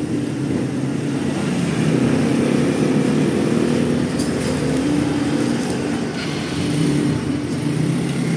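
Steady low engine rumble, like motor traffic running close by.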